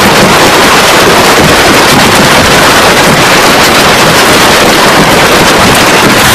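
Heavy hailstorm: hailstones pelting down onto water and pavement in a very loud, steady din of countless small impacts.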